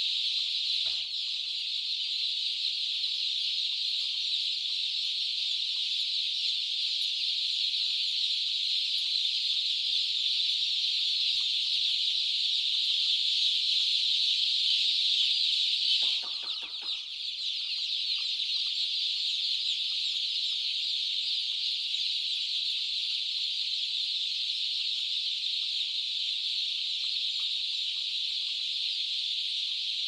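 A large flock of day-old chicks peeping all at once, a dense high-pitched chorus that dips briefly about halfway through.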